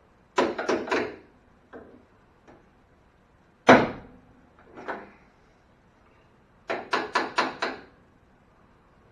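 Hood of a 1986 Chevy Suburban being worked shut: a quick run of four knocks, one loud slam about four seconds in, then another quick run of five knocks.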